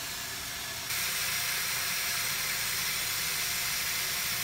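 Bathroom sink faucet running water into a basin partly filled with water, a steady hiss that gets louder about a second in.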